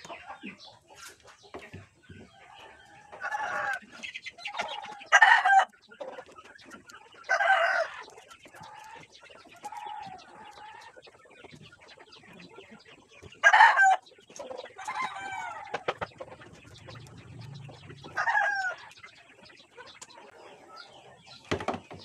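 Chickens clucking and calling, with about six loud, short calls spread through, the loudest about five seconds in and again near the middle.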